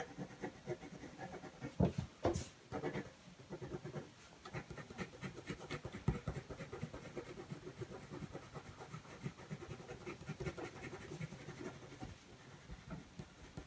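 Faint scratching of a white coloured pencil on black card, laid down in many short, quick strokes with a few sharper ticks now and then.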